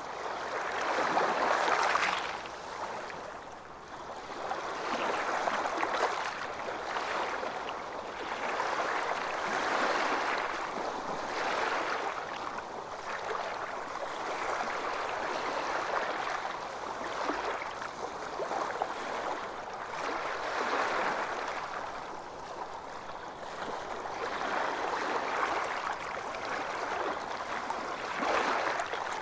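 Calm waves lapping, the water noise swelling and easing off about every four seconds.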